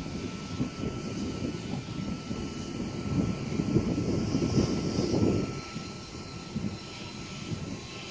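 Sydney S-set double-deck electric suburban train rolling slowly along the platform road, a low rumble of wheels and motors that swells about halfway through and then eases.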